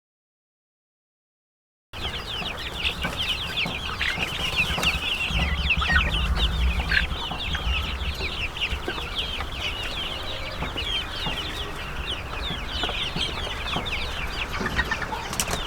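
Silence for about two seconds, then a large flock of young chickens peeping densely: many short, high, falling chirps overlapping continuously. A low rumble rises under them midway through.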